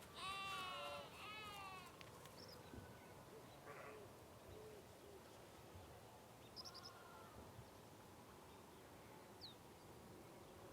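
A bleating farm animal calls twice in quick succession, each call wavering and lasting under a second. After that it is nearly quiet, with a few faint, short, high chirps.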